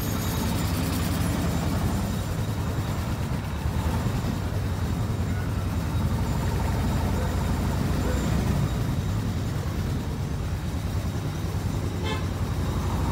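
Veteran car engine idling steadily at a standstill, a low, even pulsing note.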